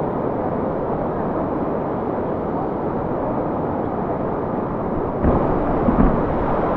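Steady rush of a flowing river over stones, with two short low thumps about five and six seconds in.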